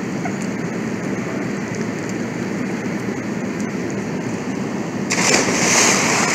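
A steady low background rush, then about five seconds in a loud splash lasting over a second as a person jumps into a swimming pool.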